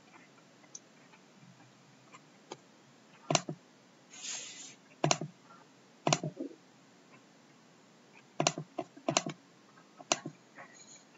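Sharp clicks of a computer mouse, in about six clusters, several as quick double clicks. A brief hiss comes about four seconds in.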